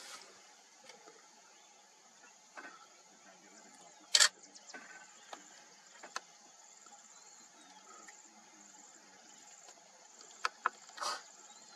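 Quiet grassland ambience with a steady high-pitched insect drone, broken by one loud sharp crack about four seconds in and a few quicker snaps near the end.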